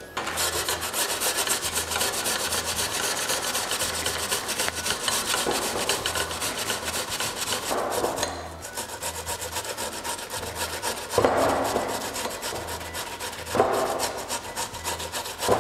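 Raw potato grated by hand on a flat metal grater in a glass bowl: fast, even rasping strokes, with a short break about eight seconds in.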